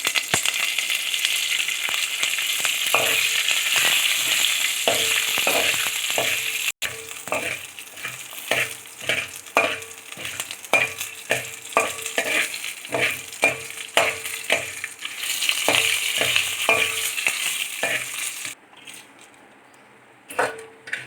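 Curry leaves and whole spices sizzling as they fry in hot oil in a pan, stirred with a spoon that scrapes and knocks in repeated strokes, about two a second. The sizzling stops near the end, leaving a couple of knocks.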